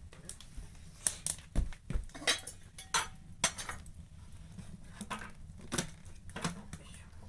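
Lumps of coal being loaded into a brick pechka stove: irregular sharp clinks and knocks, about a dozen, the loudest in the first few seconds.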